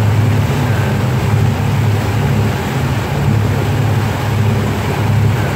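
Cruise boat's engine running steadily with a low drone, over the rushing wash of its churning wake.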